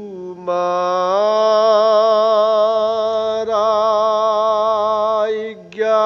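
Male voices singing a Dihanam, an Assamese devotional chant. The notes are drawn out and held long, with a short break before a new phrase starts near the end.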